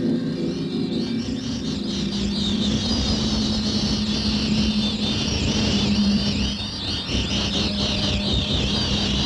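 Electronic spaceship sound effect: a low rumble with a steady hum under it, and from about a second and a half in, a dense, high, warbling twitter laid over it.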